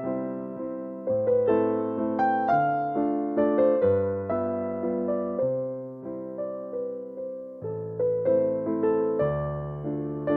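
Background music: a gentle electric piano playing a slow melody over sustained bass notes.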